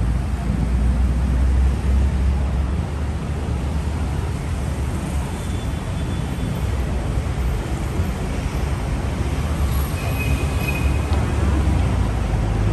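Steady low rumble of city street traffic, with a short high tone about ten seconds in.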